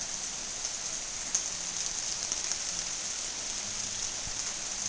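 Steady rain falling, a continuous even hiss with an occasional sharper drip.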